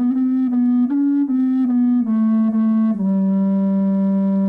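Wooden bass recorder, blown through a curved brass crook, playing a slow phrase of low notes that step up and back down. The phrase ends on a long held low note.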